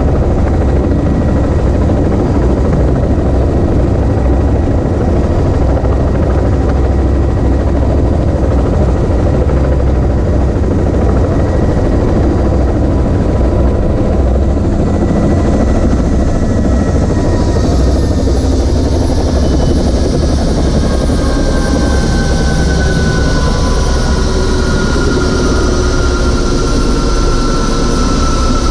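Helicopter rotor and engine heard from inside a doors-off cabin: a loud, steady low rumble with wind noise. In the second half a thin whine slowly falls in pitch and the hiss grows brighter.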